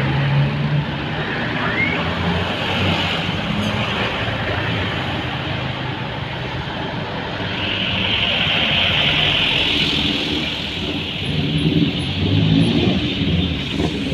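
Passing road traffic: light diesel trucks and motorcycles driving by, with engine hum and tyre noise. A truck passes close by around the middle, bringing a louder hiss for a couple of seconds.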